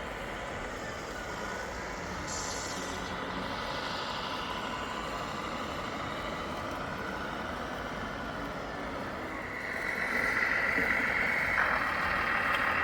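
Sound module of an RC scale truck playing heavy-truck engine sound over steady hall noise. About nine and a half seconds in, a steady high-pitched whine starts and the overall sound grows louder.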